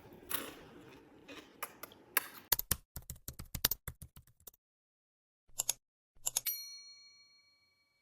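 Soft crunching and rustling, then a quick run of sharp typewriter-like key clicks. After a moment of dead silence come two short clicks and a bright bell ding that rings out and slowly fades.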